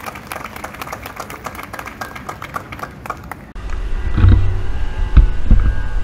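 Crowd applauding, thick fast clapping, which stops abruptly about three and a half seconds in and gives way to a loud low rumble.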